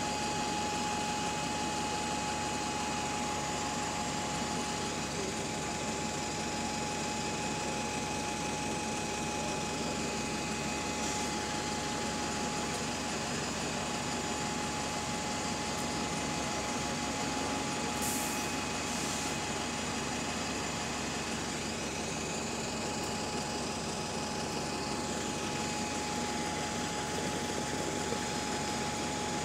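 Double-decker bus idling at a stop: a steady engine hum with a constant whine, and two short hisses of air about two-thirds of the way through.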